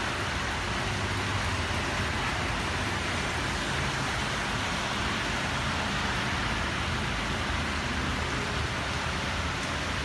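Steady heavy rain pouring onto puddled, flooded ground, with a low rumble underneath.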